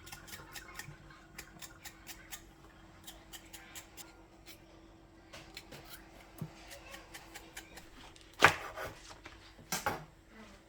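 Kitchen knife chopping on a cutting board, a quick series of light taps, with two heavier knocks near the end. A faint steady hum sits underneath.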